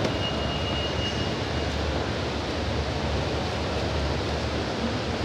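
Steady low hum and wash of noise from a running escalator and the open mall hall around it. A thin high tone sounds for about a second and a half near the start.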